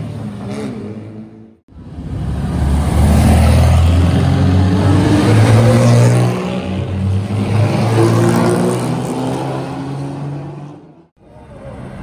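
Vintage car engines running and revving as the cars set off. The sound drops out briefly about a second and a half in and again near the end.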